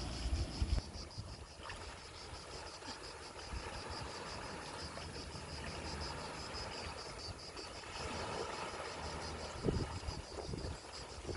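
A steady insect chorus that pulses evenly at a high pitch, with a low rumble underneath and a few low thumps near the end.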